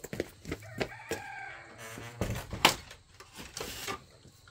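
Chickens calling, with one drawn-out, wavering call lasting about a second, among scattered knocks and a brief rustling hiss.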